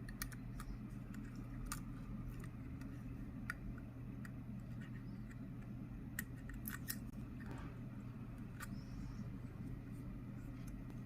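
Small repair tools, tweezers and screwdriver, clicking and tapping on an iPhone 11's frame and parts as it is taken apart: a dozen or so light, irregular clicks with a short scrape a little past halfway, over a steady low hum.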